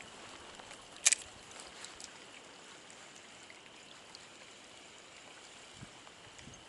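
Steady rush of a trout stream's flowing water, with a single sharp click about a second in.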